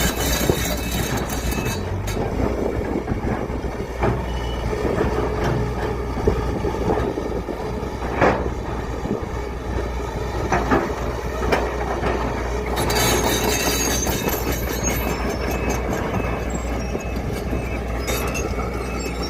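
Excavator's diesel engine running steadily under work, with scattered metallic knocks and clanks from the machine and its load, the sharpest about eight seconds in.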